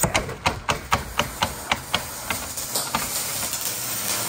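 A rapid run of sharp taps, about four a second and getting fainter, then the steady hiss of electric welding at the bench.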